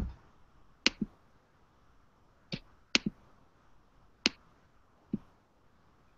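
Sharp, dry clicks, about eight in all, several coming in quick pairs a fraction of a second apart, with quiet in between.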